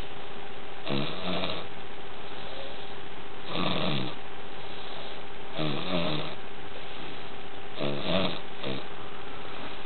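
Snoring in a slow, regular rhythm: a rough snore about every two seconds, with a shorter one straight after the fourth. A steady hum and hiss run underneath.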